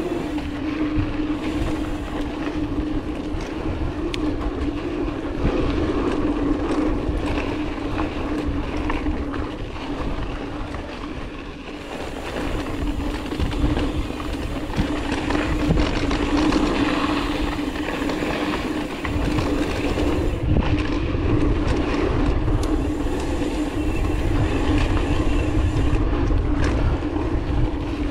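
Ibis Mojo 4 mountain bike being ridden: tyres rolling and rattling over the trail with a heavy rumble and a steady hum, getting louder and softer as the ride goes.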